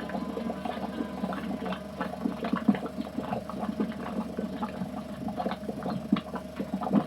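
Bubbling mud pools gurgling and plopping in irregular pops, over a steady hum.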